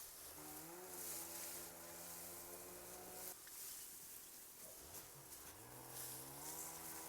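A small motor spinning up with a rising whine, running steadily for about three seconds, cutting off suddenly, then spinning up again and running on.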